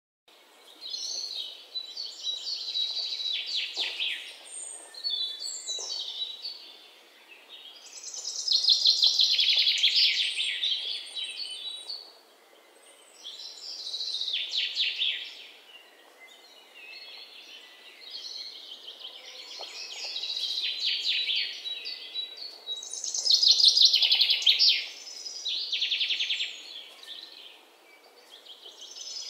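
Songbirds singing in trilled phrases a second or two long, one after another every few seconds, over a faint steady hiss.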